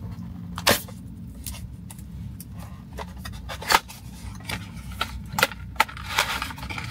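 Retail packaging of a boxed pair of earphones being handled and opened: scattered light clicks and taps with soft rustling and scraping, the sharpest click a little past the middle.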